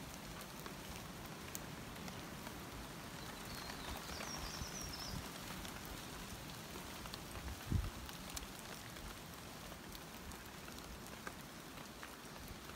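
Light rain pattering steadily on forest leaves, with scattered drips. A short high wavering chirp comes about four seconds in, and a single dull low thump about eight seconds in.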